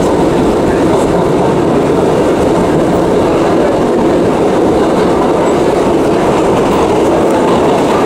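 New York City subway train in motion: a loud, steady rumble and rattle of wheels on the track, with no let-up.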